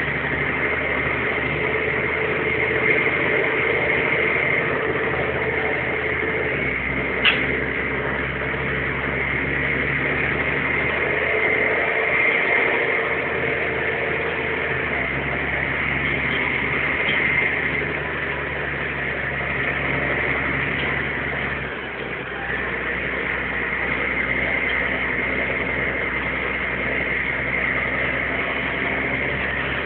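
Massey Ferguson 6190 tractor engine running steadily at work while spreading slurry, heard from inside the cab, with one short sharp click about seven seconds in.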